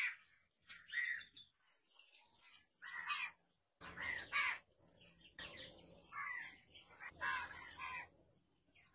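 Birds calling: an irregular series of short calls, roughly one or two a second. A faint low rumble sits underneath from about four seconds in.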